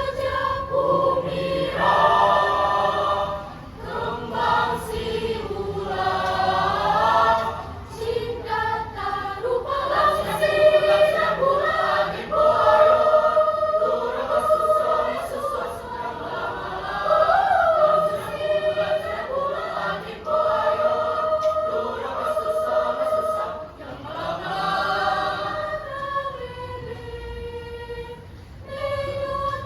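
High school choir singing in several voice parts.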